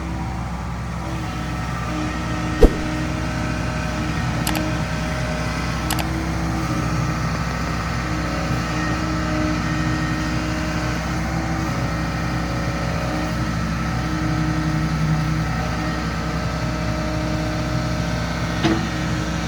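Hitachi ZX75UR-3 excavator's diesel engine running steadily, with tones that step up and down in pitch as the load changes. A single sharp knock about two and a half seconds in is the loudest thing, and a smaller one comes near the end.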